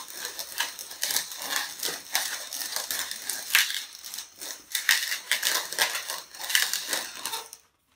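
Inflated latex modelling balloons squeaking and rubbing against each other as they are twisted together by hand, stopping near the end.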